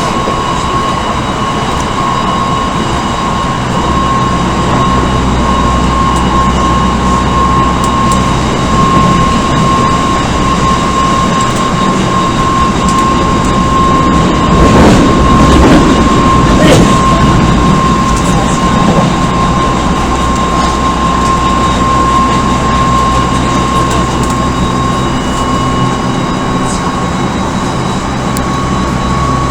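Odakyu 1000 series electric train with Mitsubishi GTO-VVVF traction, heard from inside the car running at a steady speed: a constant high whine over the rolling noise, with a louder rush of noise about halfway through.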